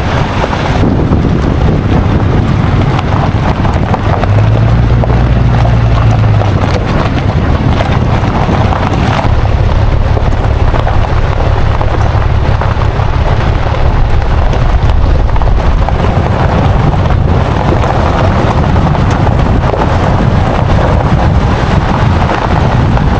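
Steady road and engine noise of a moving vehicle, a low hum that swells briefly about four seconds in, with wind buffeting the microphone.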